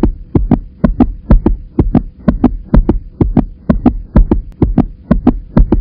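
Heartbeat-style sound effect: doubled thumps, a strong beat then a weaker one, repeating about twice a second over a faint steady tone.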